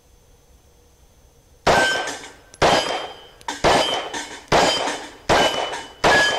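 Six 9mm pistol shots from a Glock 17, fired at a steady pace of about one a second starting near two seconds in. Each shot is followed by a short metallic ring from the steel target plates.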